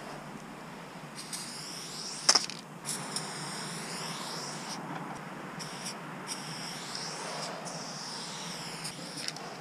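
Aerosol spray-paint can hissing in several long bursts with short breaks, the hiss wavering as the nozzle sweeps along the wall. A single sharp click a little over two seconds in.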